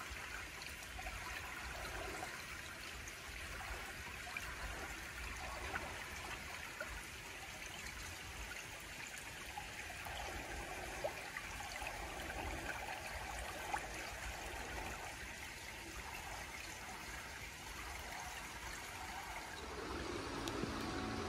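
Small shallow stream trickling steadily over rocks, with a low rumble beneath. Music comes in near the end.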